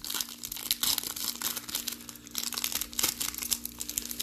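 Plastic trading-card pack wrapper being torn open and crinkled by hand, a dense irregular crackle, over a steady low hum.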